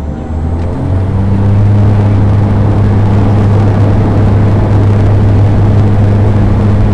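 Turboprop airliner's engine and propeller heard from inside the cabin, powering up about a second in to a loud, steady, low propeller hum as take-off power is set for the take-off run.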